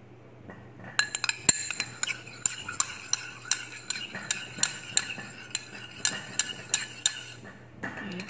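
Metal spoon stirring thick sauce in a ceramic bowl, clinking against the bowl's sides about three times a second for several seconds, with a couple more clinks near the end.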